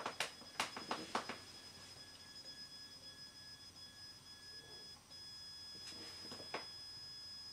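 Stepper motor of a model railway turntable turning the deck, with a steady high-pitched whine. A few sharp clicks come in the first second or so, and two more about six seconds in.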